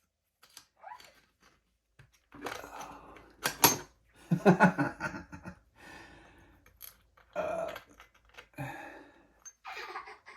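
Metal hand tools clicking, scraping and rattling against a freeze plug being pried out of an engine block, with two sharp clicks about three and a half seconds in as the loudest moment.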